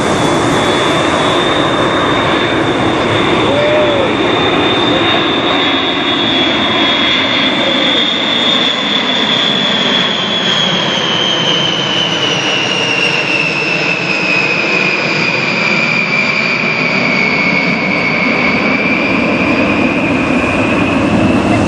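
A Boeing B-52 Stratofortress's eight TF33 turbofan jet engines passing overhead in a fly-over. A loud, steady jet rumble is topped by a high whine that slides down in pitch in the second half as the bomber passes.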